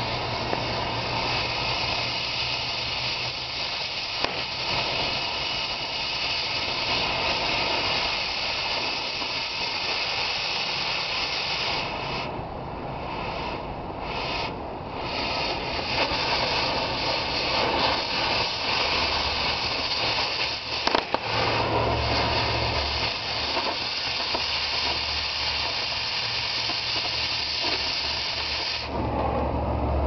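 Oxy-acetylene cutting torch hissing steadily as it burns through the steel of a backhoe bucket tooth. The hiss drops out briefly a few times around the middle and falls away just before the end. A low engine hum runs underneath at times.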